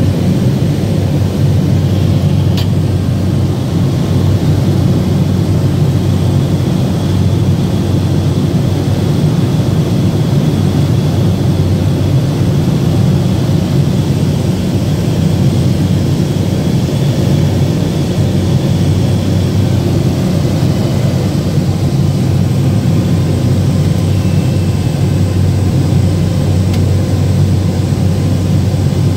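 Single-engine propeller plane's engine and propeller running at a steady cruise, heard from inside the cabin as an even, low drone.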